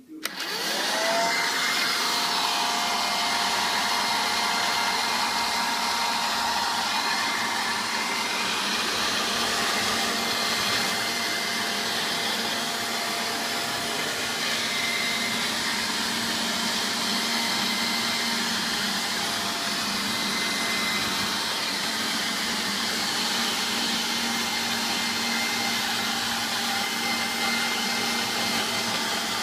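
Electrolux Rapido cordless handheld vacuum cleaner switching on, its motor whine rising over about the first second as it spins up, then running steadily with a high whine over a rush of air.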